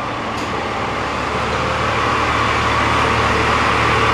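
A loud, steady mechanical drone with a low hum under it, slowly growing louder.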